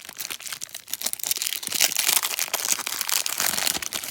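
Clear cellophane wrapper of a 1987 Topps cello pack crinkling and tearing as the pack is handled and pulled open.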